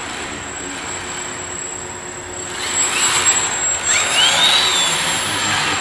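Home-built CNC machine running: a steady whirring noise with a constant high whine, growing louder about halfway through, and a tone that rises and falls in pitch about four seconds in.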